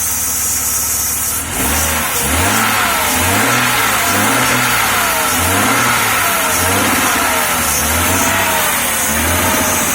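1994 Jaguar XJ6's straight-six engine, freshly revived after months of not starting, idling steadily for about a second and a half and then being revved up and down repeatedly. It runs with a miss that the owner puts down to spark jumping from the coil's low-tension lead to the high-tension lead.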